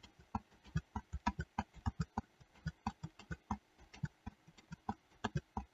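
Computer keyboard keys clicking repeatedly and irregularly, a few presses a second, as Ctrl+Z is pressed over and over to undo.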